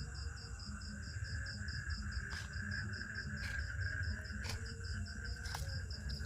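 Insects calling, one of them chirping in a fast, even pulse of about seven high chirps a second over a steady drone, with a few sharp clicks.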